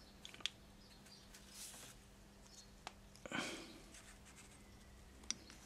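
Faint handling sounds of a chainsaw carburettor being put back together by hand: a few light clicks of small metal parts and a couple of brief scuffs.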